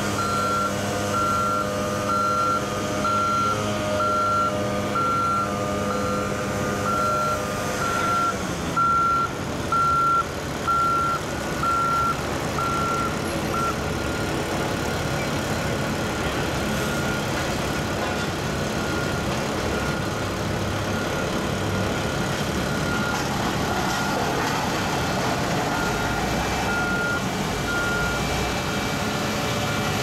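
Backup alarm of heavy paving equipment beeping at an even pace over diesel engines running; the beeping stops about halfway through and returns fainter near the end.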